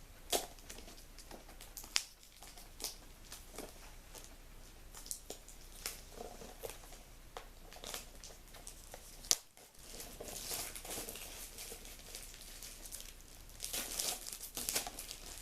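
Plastic shrink-wrap being torn and peeled off a sealed DVD case: scattered sharp crackles and clicks, turning into denser crinkling about ten seconds in and again near the end.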